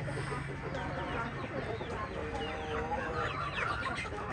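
Several chickens clucking, with many short calls overlapping throughout.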